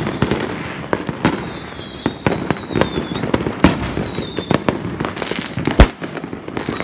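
Many fireworks going off at once: a dense run of bangs and crackling pops, with several high whistles falling in pitch, and a single loud boom near the end.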